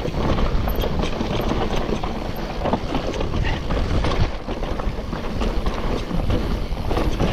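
Mountain bike riding fast down a rough trail: a steady rush of wind on the microphone and tyres on loose rock and dirt, with many quick knocks and rattles as the bike hits bumps.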